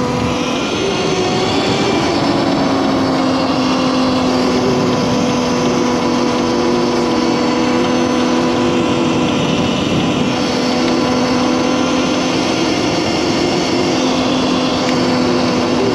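Electric Honda CRF450R conversion's QS138 v3 motor on a BAC8000 controller whining steadily under way, its pitch wavering up and down a little with the throttle, over a steady rushing noise.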